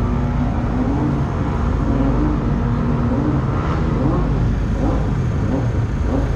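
Racing motorcycle engines being revved in the distance, their pitch rising and falling again and again over a steady low rumble.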